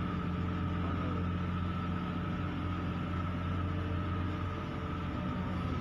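Steady low engine drone with a thin higher whine above it, from a boat engine running at idle.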